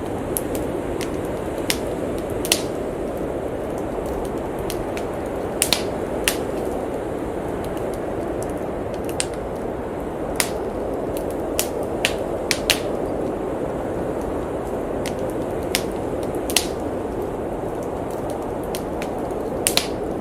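Wood fire crackling, with sharp irregular pops and snaps, some in quick pairs, over the steady rushing noise of blizzard wind.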